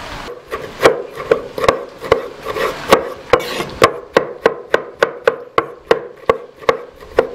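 Chef's knife chopping vine tomatoes finely on a wooden cutting board: a series of sharp blade strikes against the board, about two a second at first, quickening to about four a second in the second half.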